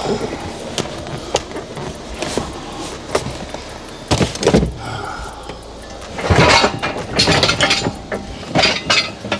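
Heavy metal clunks and scraping from a QuickJack car-lift frame being handled and loaded into a truck, in irregular bouts: one about four seconds in, a longer one from about six to seven and a half seconds, and a last one near the end.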